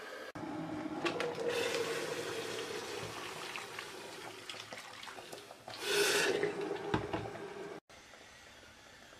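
Hot water poured from a glass kettle into a stainless steel pot of sliced potatoes: a steady splashing pour as the pot fills, louder for a moment about six seconds in, then cutting off abruptly near the end.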